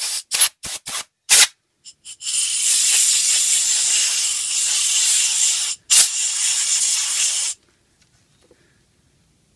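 Compressed-air blow gun on a workshop airline, blowing through a small brass carburettor tube to clear it of any blockage. Four short blasts, then one long hiss of several seconds, broken once briefly, that cuts off well before the end.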